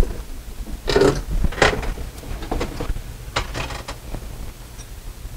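Handling noises: a couple of short rustling scrapes followed by a few light clicks as a small metal mounting bracket for window blinds is picked up and brought to the window frame.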